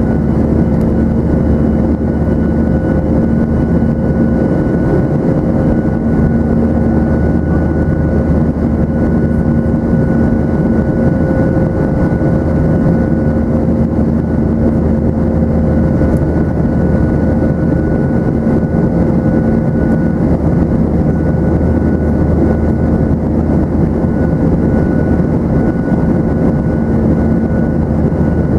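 Cabin noise inside a Boeing 737-900ER in flight, heard from a seat over the wing: the steady, loud roar of its CFM56-7B turbofan engines and the airflow, with a few steady hums running through it.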